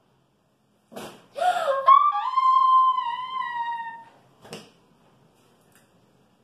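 A young girl's long, high-pitched excited scream, held about two seconds and sliding slightly down in pitch. Short breathy sounds come just before it and once more about half a second after.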